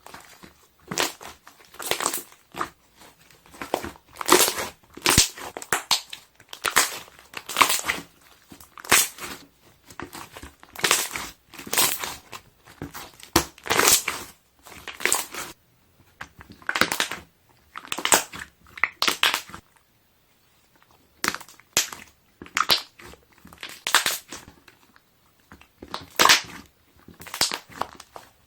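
Airy slime being pressed and squeezed by hand, its trapped air bubbles popping and crackling in repeated squelches, about one press a second, with a short pause about two-thirds of the way through.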